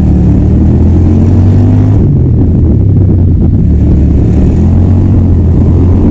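Keeway V250fi's 250cc V-twin engine running while the motorcycle is ridden, with a loud, deep exhaust note. The note drops in pitch about two seconds in, then holds fairly steady.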